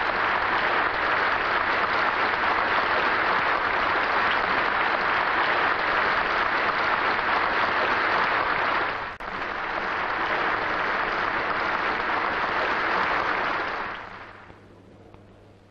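Audience applauding steadily, breaking off sharply for a moment about nine seconds in, then resuming and dying away near the end.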